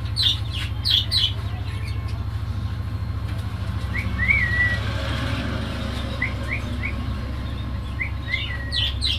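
Small birds chirping in short, quick rising chirps, with a cluster of sharper, higher chirps near the start and again near the end, over a steady low hum.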